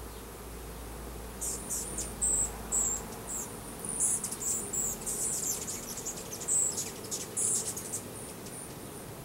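Russian-Carniolan honey bees buzzing steadily around an open hive. From about a second and a half in, a run of short, high-pitched chirps sounds over the buzzing.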